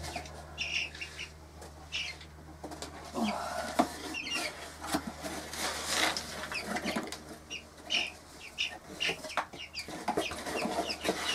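Cuckoo Marans chicks cheeping in short high notes and the mother hen clucking, mixed with the rustle and scrape of a cardboard box being opened.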